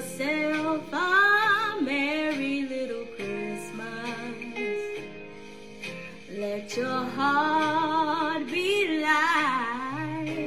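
A gospel song: a woman singing long, wavering notes over instrumental backing, in two phrases.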